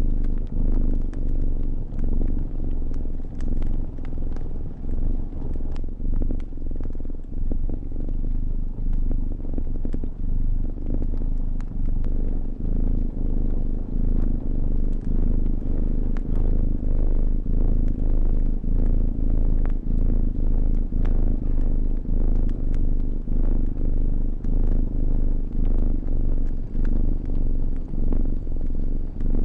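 A cat purring close up, a steady low rumble that swells and eases with each breath about once a second, with the scattered pops and crackles of a fire over it.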